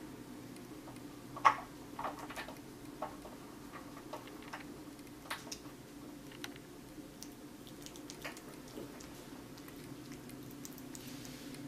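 Small, scattered wet clicks and smacks of a kitten licking and nibbling at a wedge of watermelon, over a low steady room hum. A sharper click comes about a second and a half in.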